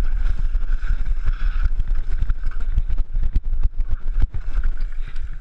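Mountain bike clattering down a rough dirt trail: many short knocks and rattles from the bike over bumps, under heavy wind buffeting on the camera's microphone.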